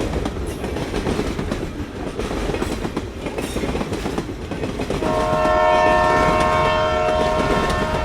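Train running past with a heavy rumble and rail clatter, then its horn sounding one long, steady multi-note chord from about five seconds in.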